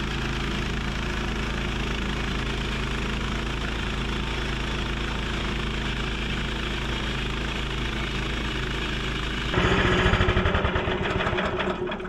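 Small gas engine of a Harbor Freight portable bandsaw mill running steadily while the carriage is pushed along a poplar log, its freshly sharpened band blade cutting. About nine and a half seconds in the sound grows louder and rougher, then eases near the end.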